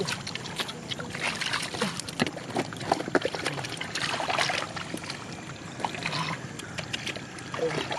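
Irregular splashing and sloshing of shallow muddy water as fish are caught by hand in a flooded field, with short wet slaps and clicks.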